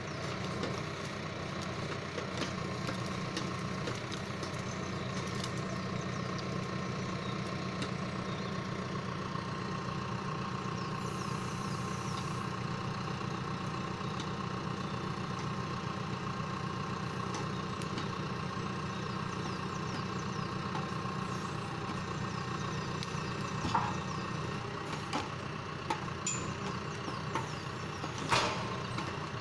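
John Deere 6115M tractor's diesel engine running steadily while it powers the hydraulic crane of a timber trailer loading logs. Near the end come a few sharp knocks as logs strike the load.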